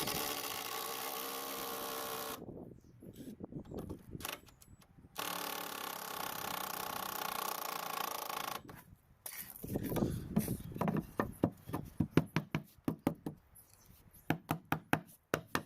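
Cordless drill/driver running in two steady bursts of a few seconds each, driving screws into timber. Later comes a quick series of sharp clicks and knocks.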